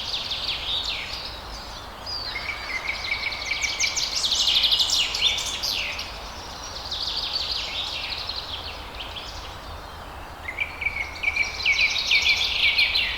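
Several songbirds singing and chirping in overlapping phrases of rapid high trills, two of them opening with a short steady note, about two seconds in and again near the end. A faint steady background noise and low rumble sit beneath them.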